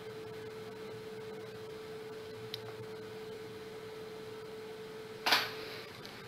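Faint room tone with a steady hum, a tiny click about two and a half seconds in, and a short sharp noise about five seconds in, after which the hum dies away.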